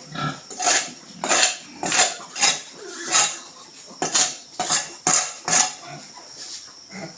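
About a dozen short scraping, clattering strokes in an uneven rhythm of roughly two a second, from cleaning work in a pig pen.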